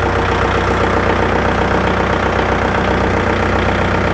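Kubota MU4501 tractor's 2434 cc diesel engine idling steadily and evenly. It runs with very little vibration, which the dealer credits to its balancer shaft.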